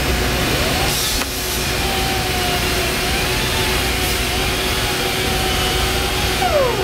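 Mitsubishi CNC laser cutting machine running: a steady mechanical hum and hiss with a whine that rises about half a second in, wavers, and drops away near the end.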